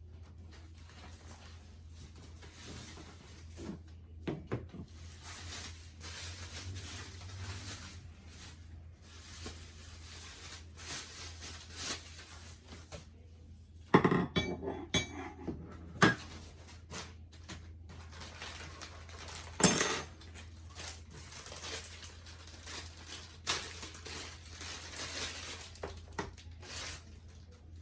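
Handling of monitor parts and packaging: rustling and scraping with scattered clinks and sharp knocks, the loudest a little past halfway. A steady low hum sits underneath.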